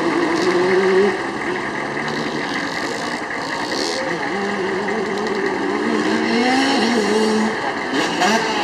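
Dirt bike engines revving on a motocross track, their pitch rising and falling again and again as the riders open and close the throttle.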